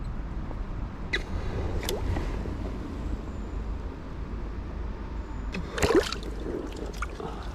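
Small creek water running steadily, with a few short splashes about a second in, near two seconds, and again near six seconds.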